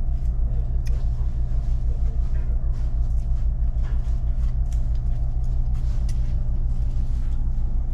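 Steady low rumble and hum of a running motor, even and unchanging.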